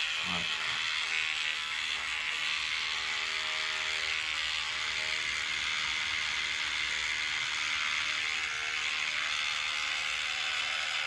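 Electric shaver running steadily, with a small vial of cleaning fluid and fishing-reel bearings pressed against its body. It serves as a homemade ultrasonic cleaner, its vibration shaking the bearings loose of old oil and dirt.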